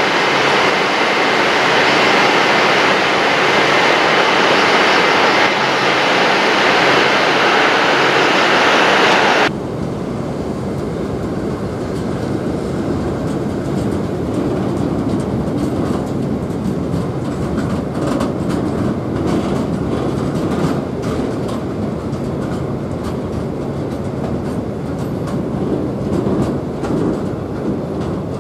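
A train running through at speed with a loud, even rushing noise, cut off abruptly about nine seconds in. What follows is a quieter train rolling with wheels clacking over rail joints.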